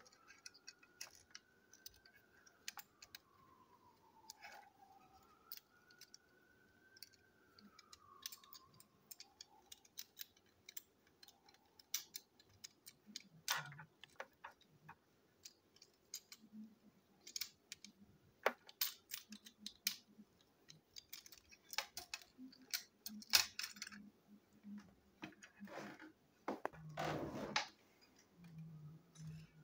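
Hard plastic toy-engine parts clicking, tapping and knocking as they are handled and pulled apart on a tabletop. The clicks are sparse at first and come thicker in the second half, with a short scraping rattle near the end.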